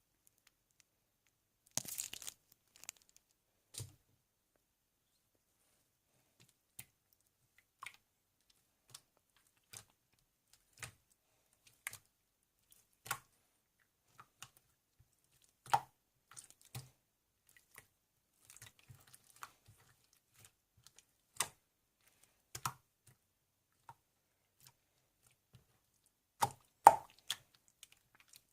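Scattered short clicks and taps, roughly one a second, with a small cluster about two seconds in and a louder cluster near the end.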